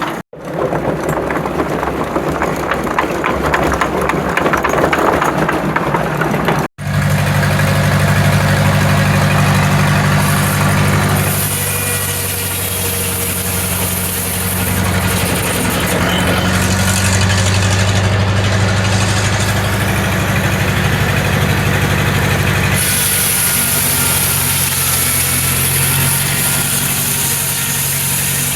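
Engine driving a Corley sawmill, running steadily under power after an abrupt cut about seven seconds in; a high hiss comes and goes twice over the steady running. The first few seconds hold a rougher, noisier machine sound between two sudden cuts.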